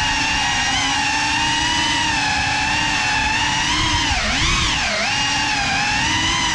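Motors and propellers of a Cineloop FPV quadcopter in flight, a steady high whine made of several pitches. The pitch dips sharply and comes back up about four seconds in and again about a second later, as the throttle is eased and opened again.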